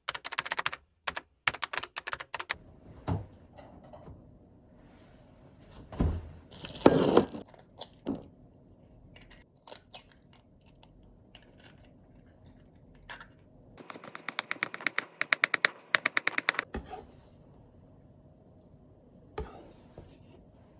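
Light clicks and knocks of small objects being handled, with a brief rustle about seven seconds in and a fast run of even taps, about ten a second, for a couple of seconds later on.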